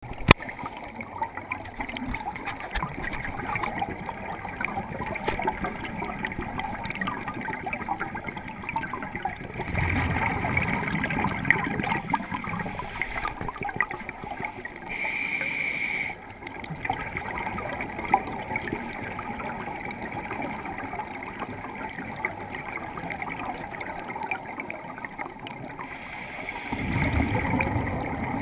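Underwater sound of scuba diving heard through a camera housing: scuba exhaust bubbles gurgling as they swell twice, about ten seconds in and again near the end, over a steady fine crackle. A short regulator hiss comes around the middle.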